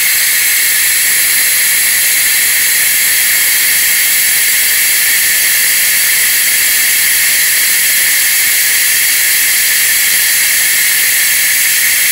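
Compressed-air-driven venturi vacuum of an ARES 15027 cooling system refill kit hissing steadily as it exhausts through its muffler, pulling vacuum on a vehicle's cooling system. A loud, even, high hiss.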